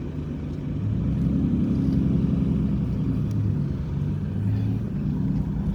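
Motor vehicle engine running, picking up in pitch and level about a second in.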